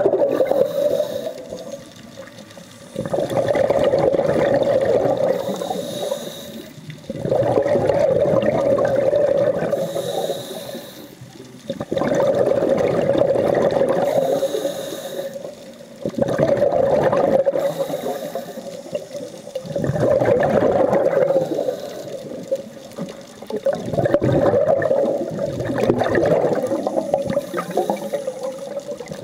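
Scuba regulator breathing underwater: exhaled bubbles rush out in loud bursts of two to three seconds, about every four to five seconds, with quieter pauses between breaths. A steady hum runs underneath.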